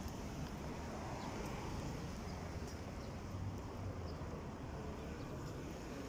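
Steady outdoor background rumble, low and even, with a few faint ticks scattered through it.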